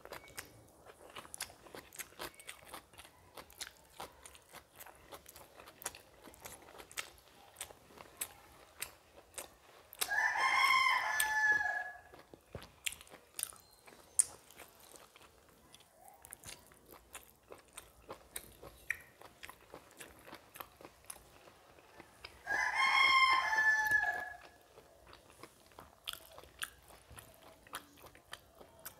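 Close-miked chewing and lip smacks of someone eating rice by hand, with a rooster crowing twice, each crow about two seconds long and louder than the chewing, about ten seconds in and again past twenty-two seconds.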